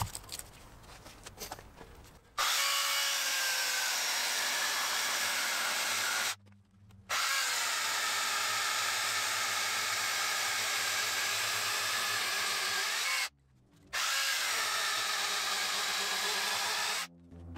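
Hychika battery-powered mini chainsaw cutting lengthwise into a green holly log. There are three stretches of steady cutting noise, each stopping suddenly, with short breaks about six and thirteen seconds in. Before the first stretch there are a couple of seconds of faint clicks.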